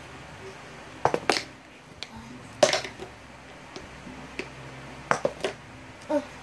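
A plastic lotion bottle being flipped and landing on a hard floor, with the toilet roll handled and knocked over: a string of sharp knocks and clacks. There is a double knock about a second in, the loudest a little before three seconds, and a quick cluster just after five seconds.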